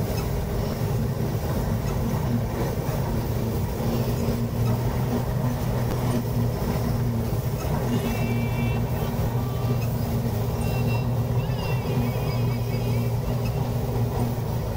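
Combine harvester running steadily while cutting wheat, heard from inside the cab: an even, low mechanical drone from the engine and threshing machinery.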